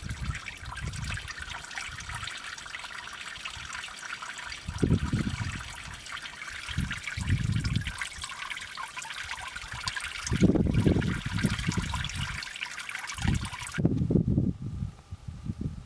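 Water trickling and dripping off moss into a small pool, a steady splashing hiss, with deep gusts of wind buffeting the microphone now and then. The trickle stops suddenly near the end, leaving only the wind gusts.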